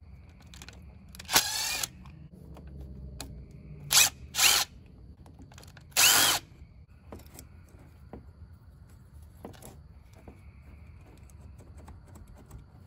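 Cordless drill/driver backing out the small screws of an ATV carburetor's float bowl in a few short bursts, each under a second, the last with a rising whine. Light clicks of metal parts being handled come between the bursts.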